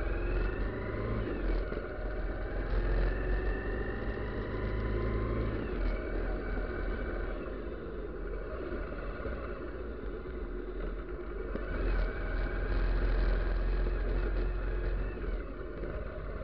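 Bajaj Pulsar motorcycle's engine running on the move, its pitch rising and falling with the throttle over a steady low rumble of road and wind noise.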